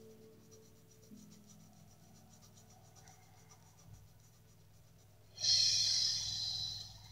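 Marker strokes scratching on sketchbook paper: faint at first, then a loud run of quick squeaky scribbling about five seconds in that lasts about a second and a half.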